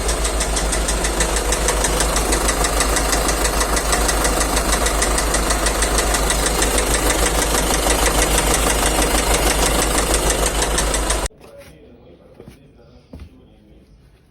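GAZon Next truck's YaMZ-534 four-cylinder diesel engine running with a rapid, regular knock, which the owner places around the fourth cylinder. The engine sound cuts off abruptly about eleven seconds in, leaving only faint clicks.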